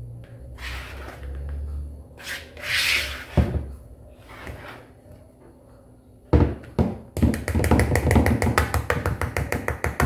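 Wire whisk beating thick cake batter in a plastic bowl: scattered scrapes and a couple of knocks, then, about seven seconds in, a fast steady rhythm of whisk strokes, several a second.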